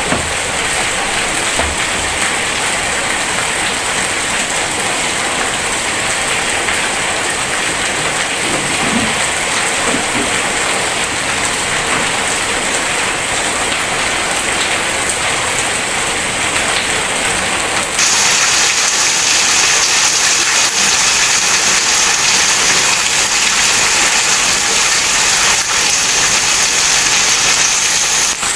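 Heavy rain pouring steadily. About 18 seconds in it abruptly becomes louder and hissier.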